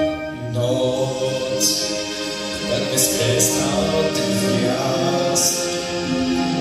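A boy singing a slow Polish song into a microphone over instrumental accompaniment, the vocal line starting a new phrase about half a second in.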